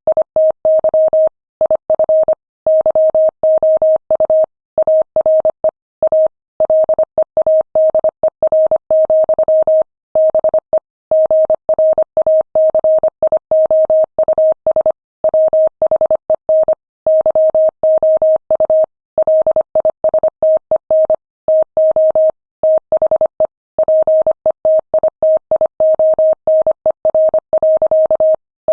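Morse code sent at 25 words per minute: a single steady mid-pitched tone keyed on and off in short and long marks, with brief gaps between letters and longer gaps between words.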